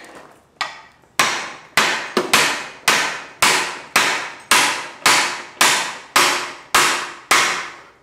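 Hammer blows on a red-hot metal bracket clamped in a vise, about two a second with a short ring after each, as the heated bracket is bent back straight.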